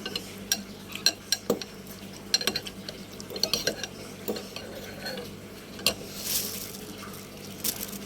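Spoon clinking against a bowl as noodle soup is stirred, a run of short, irregular clinks and taps.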